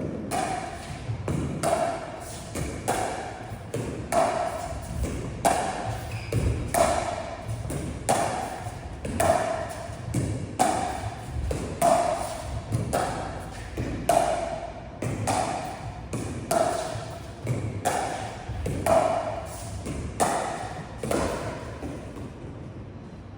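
Pickleball paddles hitting the plastic ball in a steady back-and-forth rally: a hollow, ringing pock about once a second, which stops shortly before the end.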